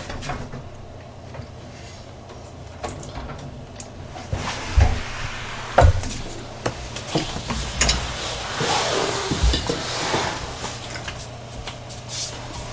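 Irregular knocks and clatters of household objects being handled, with a few seconds of rustling, over a low steady hum.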